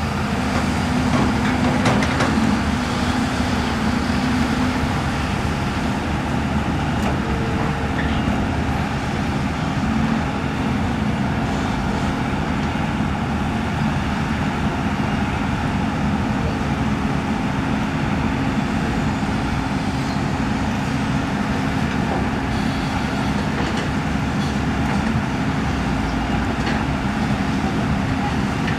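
Hydraulic excavator's diesel engine running steadily, an even hum that holds the same pitch throughout.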